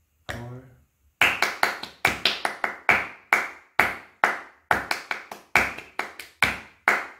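Hand clapping a rhythm pattern: runs of quick claps alternating with slower, evenly spaced claps, repeated. A single spoken count word comes just before the clapping starts about a second in.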